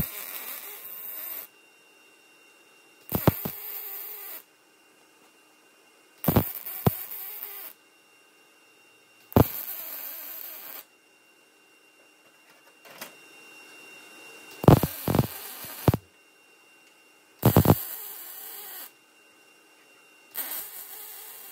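Welding arc crackling and buzzing in short bursts: seven welds of about a second each, roughly three seconds apart, with one longer weld a little past the middle, as 3/4-inch square stock is welded to a sheet-metal panel.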